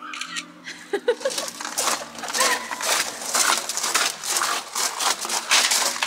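Footsteps crunching on gravel: a run of rapid, uneven crunches, growing louder about a second in.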